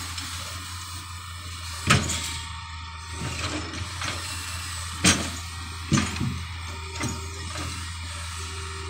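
Hitachi excavator running with a steady low engine hum, broken by four sharp knocks: one about two seconds in, then three between five and seven seconds.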